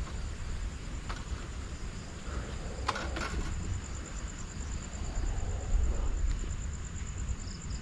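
Night-time outdoor background: an insect trilling steadily at a high pitch with an even pulse, over a low rumble. A few faint clicks come about a second and three seconds in.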